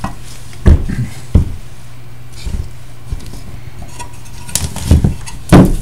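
Metal flight-recorder chassis being handled and turned over on a wooden surface: a few sharp metallic knocks and clatters, about a second in and again near the end, the last one loudest. A steady low hum runs underneath.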